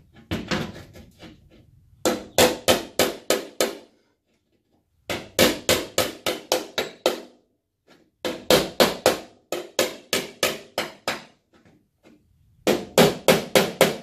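Body hammer tapping a dent out of a VW Beetle's steel front fender in hammer-and-dolly work: four quick runs of about six to ten strikes each, roughly four a second, each strike with a short metallic ring.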